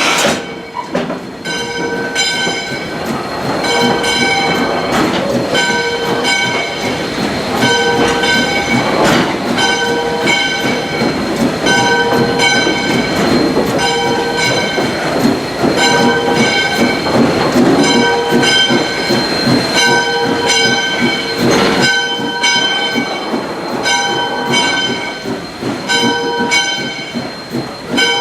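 A bell ringing steadily, about once a second, over the continuous rolling and clatter of a moving steam train.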